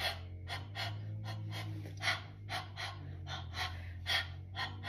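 A person panting in quick, even breaths, about four a second, with every other breath stronger, over a low steady hum.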